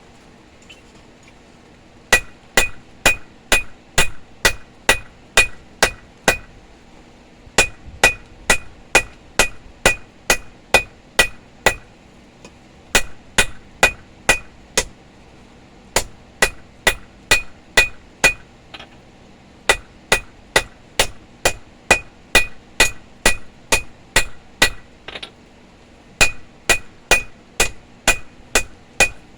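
Blacksmith's hand hammer forging steel on an anvil. The blows come in quick runs of about three a second, with brief pauses between the runs, and each blow rings.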